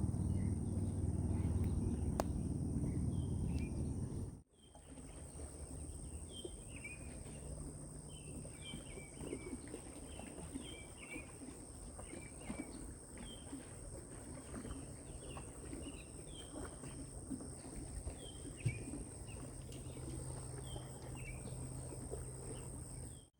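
Outdoor summer ambience: insects keep up a steady high-pitched drone while a bird repeats short chirping calls every second or so. A low rumbling noise is heavier for the first few seconds and drops out suddenly at a cut.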